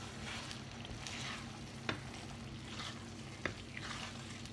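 Tomato sauce sizzling as it fries in oil in a pan, being fried down until very dry, while it is stirred with a wooden spoon. Two sharp knocks of the spoon on the pan, about two seconds in and again about three and a half seconds in.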